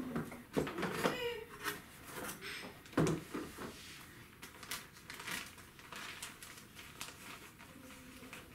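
Unboxing handling noise: plastic packaging rustling and crinkling against a cardboard box, with scrapes, light knocks and one sharper knock about three seconds in.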